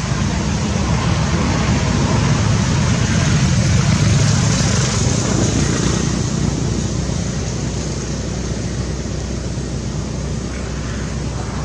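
Road traffic noise: a motor vehicle passing, its sound swelling about four seconds in and then slowly fading.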